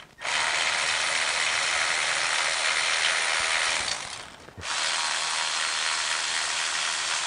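Cordless electric ratchet running, spinning out loosened oil pan bolts. It runs in two long stretches, with a short pause about four and a half seconds in.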